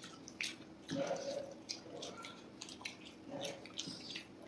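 Close-up eating sounds: chewing, and the wet squish of fingers mixing fried rice into Manchurian gravy, with small scattered clicks.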